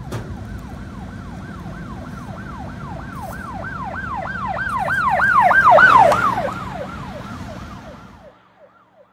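Emergency vehicle siren in a fast yelp, about three rising-and-falling sweeps a second, growing louder to a peak about six seconds in and then fading away, as of a vehicle passing. A low traffic rumble runs underneath and stops abruptly near the end.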